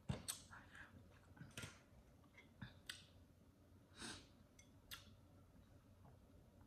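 Mostly quiet, with about six faint clicks and taps from a small plastic condiment cup and a fork being handled over a plate. The sharpest comes just after the start, and a slightly longer scrape comes about four seconds in.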